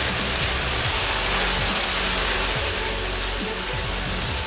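Kärcher K3 electric pressure washer running, its jet hissing steadily as it blasts a stone floor, over the constant low drone of the motor and pump.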